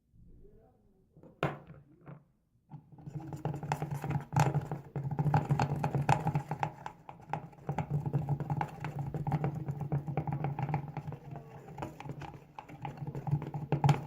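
A couple of sharp clicks, then from about three seconds in a utensil stirring white glue and red paint in a bowl: continuous rapid scraping and clicking.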